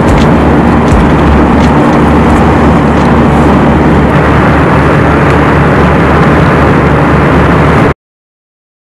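Airliner cabin noise: a loud, steady rumble and rush of jet engines and airflow, with a low drone underneath. It cuts off suddenly about eight seconds in.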